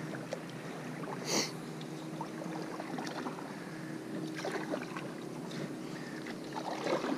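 Paddle strokes in the water from a stand-up paddleboard: the blade dipping and pulling with a splash every couple of seconds, the sharpest about a second in, over a steady trickle of water.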